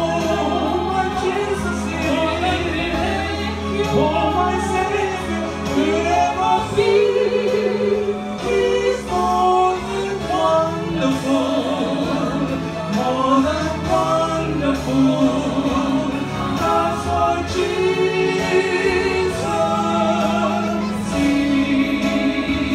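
A man and a woman singing a gospel duet through microphones, their voices held in long, ornamented notes over a steady, sustained low accompaniment.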